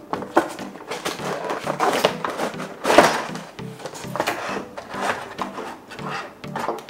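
Clear plastic blister packaging and a cardboard box being handled and pulled apart while a die-cast model road roller is unpacked: irregular crinkles, clicks and knocks, the sharpest crack about three seconds in. Background music plays underneath.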